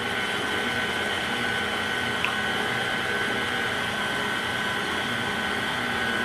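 KitchenAid Artisan stand mixer running steadily, its motor giving an even whir with a constant whine as it mixes cookie dough.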